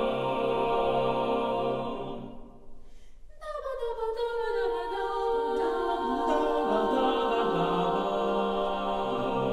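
Sixteen-voice mixed a cappella choir of sopranos, altos, tenors and basses holding sustained chords. The chord fades away about two seconds in, then a new chord enters at about three and a half seconds, its pitches gliding down before they settle and hold.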